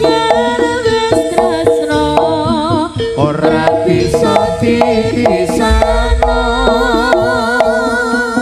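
Live jaranan music from an East Javanese gamelan ensemble: hand drums and struck, ringing metallophone notes play a busy rhythm under a wavering melody with strong vibrato.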